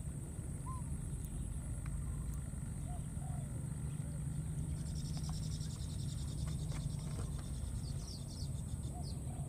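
Steady outdoor background: a low rumble, a high buzzing trill that sets in about halfway through, and a few faint short chirps.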